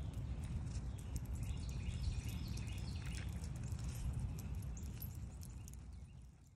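Outdoor ambience from a phone recording: a steady low rumble of wind on the microphone, with light scattered ticks and faint chirping from about one and a half to three and a half seconds in. It fades away near the end.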